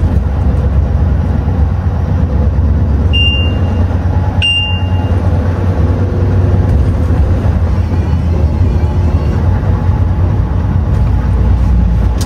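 Scania V8 truck on the move: a steady low engine and road drone, with two short high beeps about three and four and a half seconds in.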